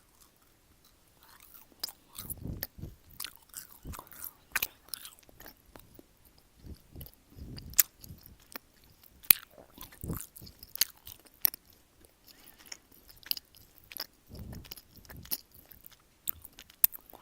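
A person chewing gummy jelly candy: soft chewing with many irregular sharp mouth clicks, starting about a second and a half in.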